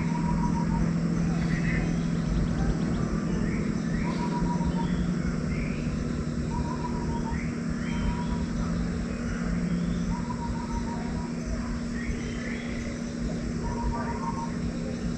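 Birds calling over a steady low hum. A short pulsed call repeats every couple of seconds, with quick rising chirps between.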